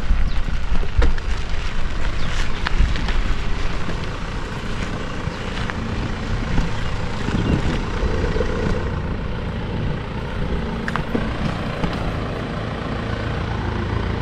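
Bicycle rolling over a rough concrete and gravel road: wind rumbling on the microphone with tyre noise and rattles, and several sharp clicks in the first few seconds.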